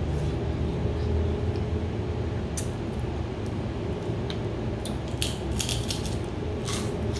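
Table sounds of a meal eaten by hand: scattered sharp clicks and crunches, several in quick succession about five to seven seconds in, over a steady low hum.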